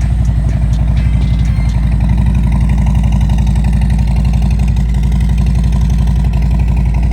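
Harley-Davidson touring motorcycle's V-twin engine running steadily, a loud, even low pulse.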